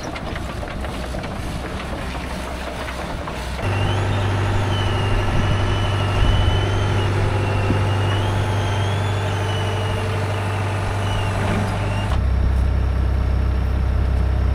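Hitachi EX120 excavator's diesel engine running. About four seconds in it becomes louder and steadier, with a high wavering whine over it. About twelve seconds in the whine stops and the engine settles to a lower note.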